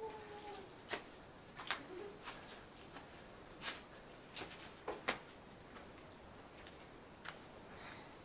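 Steady, high-pitched drone of insects in tropical forest. Several footsteps on a dirt path are heard over it, scattered through the first five seconds or so.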